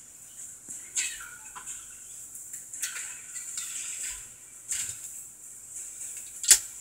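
Hairbrush bristles stroking through hair close to the microphone: short rough swishes about every two seconds, with a sharp click near the end.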